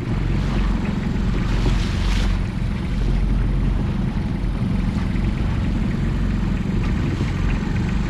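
Fishing boat's engine running steadily with a low hum, with a brief rush of hiss about two seconds in.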